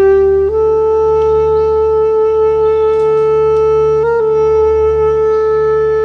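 Bass clarinet playing slow, long-held notes. About half a second in it steps up to a higher note and holds it, with a brief flicker in pitch about two-thirds of the way through.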